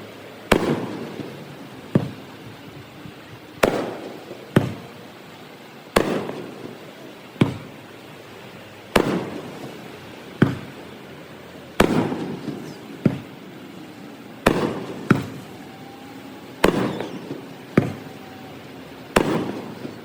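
Aerial firework shells bursting one after another, a sharp bang about every second and a half, each trailing off in a rolling echo. Played back at double speed.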